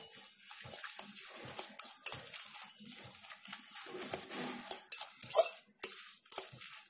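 A metal utensil stirring grated raw potato into beaten egg in a glass bowl: irregular clinks and taps against the glass as the mixture is stirred and scraped, with a few sharper knocks.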